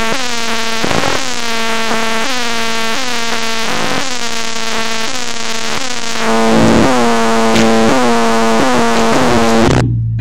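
Electronic music played loud through a Logitech Z-623 speaker system with subwoofer: a steady run of synthesizer notes, each dipping in pitch as it starts, growing louder about six seconds in.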